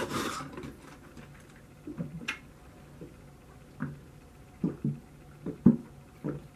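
A person gulping milk from a plastic jug: a run of short swallowing sounds in the second half, a few earlier ones around two seconds in. A short loud rush of noise at the very start.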